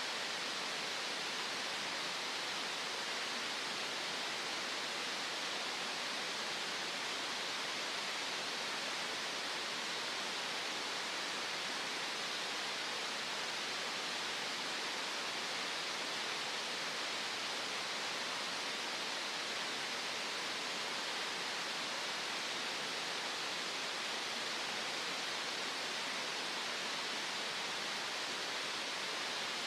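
Steady green noise: an even, unchanging hiss, strongest in the upper middle range with little bass.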